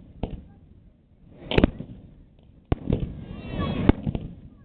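Aerial fireworks shells bursting overhead: a series of sharp bangs, the loudest about one and a half seconds in, each followed by a hissing crackle as the stars burn out.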